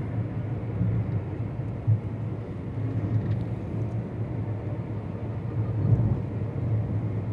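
Steady low rumble of a car's engine and tyres on the road, heard inside the cabin while driving, with two brief knocks, about two seconds in and near six seconds.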